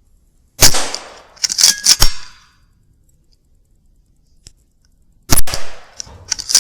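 Two shots from a Weihrauch HW100 .22 PCP air rifle, about five seconds apart. Each sharp crack is followed within a second or so by a few quick metallic clicks and clangs with a short ring.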